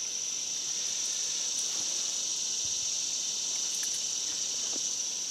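Steady high-pitched drone of insects calling in summer vegetation, unchanging throughout.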